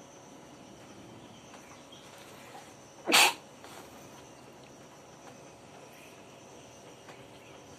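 A person sneezes once, a single short, sharp burst about three seconds in, over a faint steady hiss.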